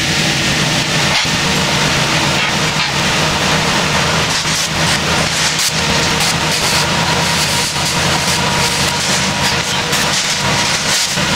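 Machinery running steadily: a low hum under a loud hiss, with scattered light rattles and clicks.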